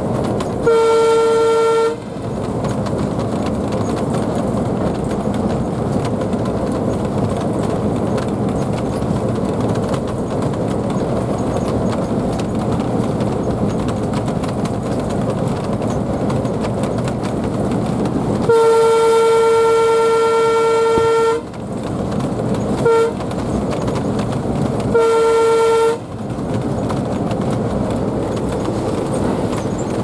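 Alco WDM-3D diesel locomotive heard from inside its cab, running steadily along the rails while its horn is sounded four times: a short blast about a second in, a long blast of about three seconds past the middle, a brief toot, then a one-second blast. The horn holds a single steady note.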